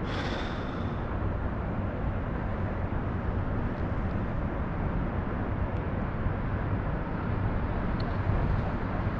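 Steady outdoor rumble and hiss, even and unchanging, with a brief brighter hiss right at the start.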